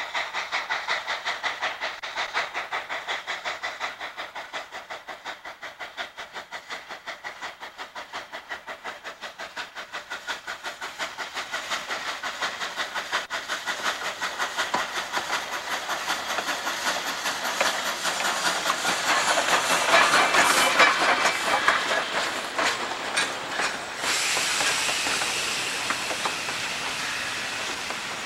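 Coal-fired K-37 2-8-2 narrow-gauge steam locomotive working a passenger train, its exhaust chuffing about four times a second and growing louder as it approaches and passes close by. About 24 seconds in, the chuffing gives way to the coaches rolling past with a clickety-clack of wheels on rail joints.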